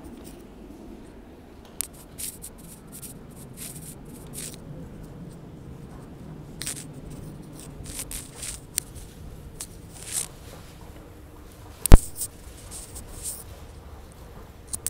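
Footsteps and handling rustle as someone walks across a station floor and onto an escalator: short scuffs and scrapes every second or so over a low steady hum. One sharp click about twelve seconds in is the loudest sound.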